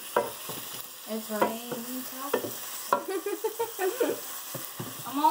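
Wooden spatula stirring and scraping diced bell peppers and garlic in a nonstick pan, with the food sizzling as it fries in butter and oil on high heat. Several sharp scrapes of the spatula on the pan stand out over the steady sizzle.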